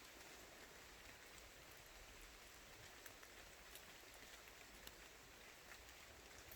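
Faint, steady hiss of rain falling in the woods, with a few light drips now and then.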